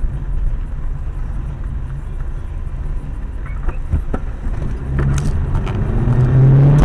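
A car driving, heard as a steady low engine and road rumble with a couple of sharp clicks. Over the last two seconds the engine note rises and the rumble gets louder.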